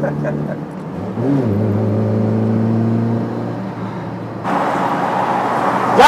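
A 1992 Tofaş Doğan SL's engine heard from inside the cabin while cruising on the motorway. Its pitch drops about a second in and then holds steady. About four and a half seconds in, a louder rush of road and wind noise comes in.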